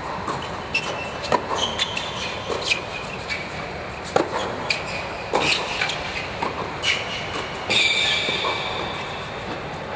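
Tennis rally on an indoor hard court: sharp pops of racket strikes and ball bounces, with rubber-soled tennis shoes squeaking on the court surface, the longest squeak coming just before the end, over a steady background noise.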